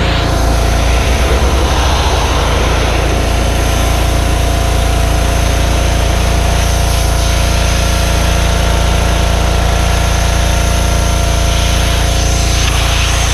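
Power Stroke 2200 PSI gas pressure washer's small engine running steadily under load, with the hiss of the high-pressure water spray.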